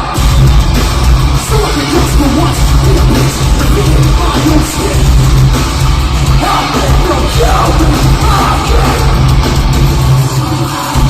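Live nu-metal band playing heavy, distorted guitars, bass and drums at full volume, with harsh screamed vocals.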